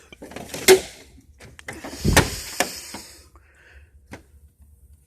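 Metal tool chest drawers being shut and pulled open: a few sharp clicks, a heavy thump about two seconds in with a second of rolling noise from the drawer slides, then another click.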